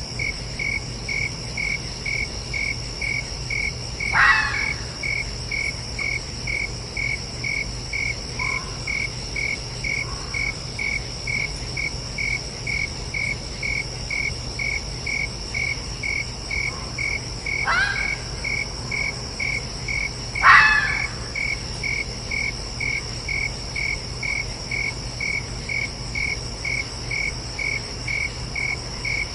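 A fox gives three short, sharp calls, each falling in pitch: one about four seconds in and two close together past the middle, with a couple of faint ones between. Under them, night insects chirp evenly about twice a second over a constant high drone.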